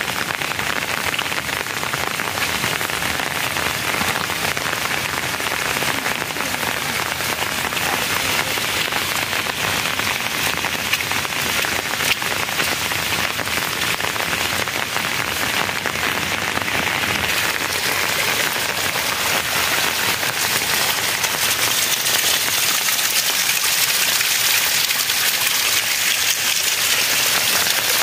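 Steady heavy rain falling, a dense patter of drops, growing a little louder over the last few seconds.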